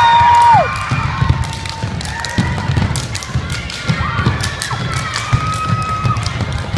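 Step team stomping and clapping on a wooden gym floor: a quick run of heavy foot stomps and sharp hand claps. A long high shout from the crowd falls away about half a second in, and shorter shouts break through later.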